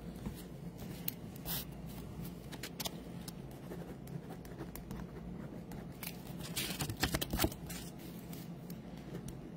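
Quiet handling of trading cards and a rigid plastic toploader: scattered soft clicks and rustles, bunched together about two-thirds of the way through, over a low steady hum.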